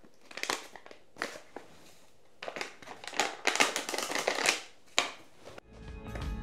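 Paper sachet of pudding powder being torn open and crinkled while it is emptied into a bowl, in several short bouts of rustling crackle.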